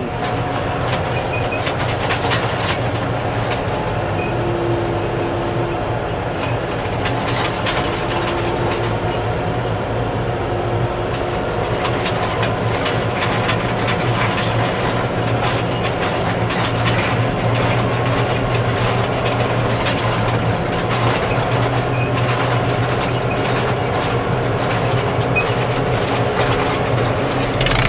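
An old farm tractor being tow-started on a chain: its engine is turning over and firing as it rolls, with a steady mechanical clatter and rattling.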